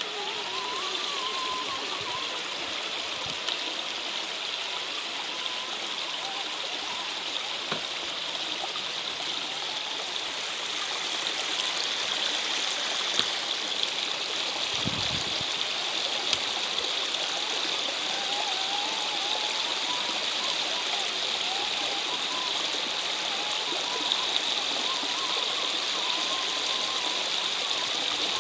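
Shallow mountain stream rushing and splashing over rocks, a steady wash of water that grows a little louder about halfway through.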